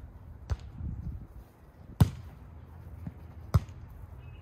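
A volleyball being struck by players' hands and forearms during a rally: three sharp slaps about a second and a half apart, the middle one loudest, with a fainter knock just before the last.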